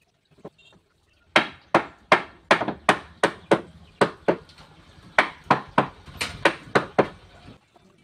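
Hammer blows on wood, knocking the joints of a wooden bench frame together: a quick run of about eighteen strikes, starting about a second in and stopping shortly before the end.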